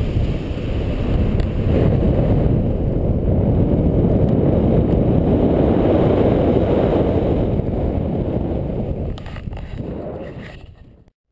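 Wind buffeting the microphone of a paraglider's pole-mounted camera in flight: a loud, low rush of wind noise that eases off near the end and then cuts out abruptly.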